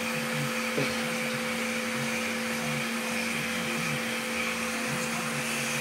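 Vacuum cleaner running steadily, a constant motor hum over an airy hiss, as it is worked over a cat lying on a couch.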